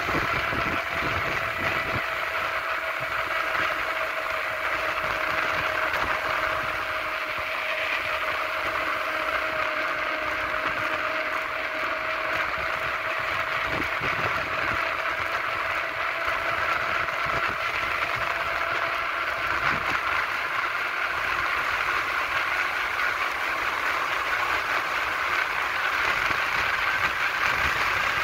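Steady rolling noise of wheels on asphalt during a fast downhill descent, with a faint whine that slowly sinks in pitch over most of the stretch.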